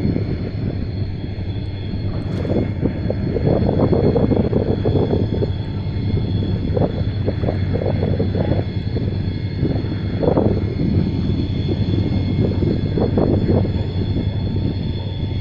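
Boat outboard motor running steadily with a constant low hum, with wind gusting over the microphone.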